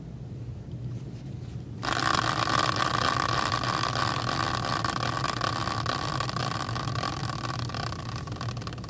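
A caster wheel in a steel bracket, flicked by hand about two seconds in, spinning freely with a steady whir from its axle and tyre that slowly dies away as it runs down.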